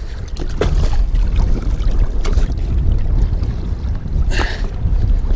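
Wind buffeting the microphone as a steady low rumble, with lake water lapping against the boat hull. A few short splashes come from a muskellunge in a landing net at the water's surface, the loudest about four seconds in.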